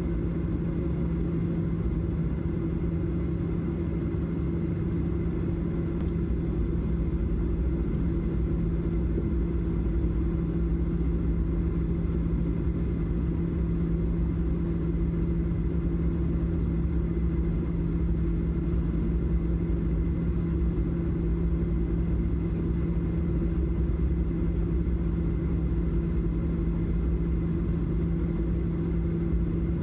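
Steady airliner cabin noise in a Boeing 737-700: a low rumble with a constant engine hum that does not change.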